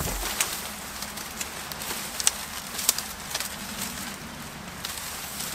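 Dry reed thatch bundles rustling as they are handled, with irregular sharp crackles of the stiff stalks.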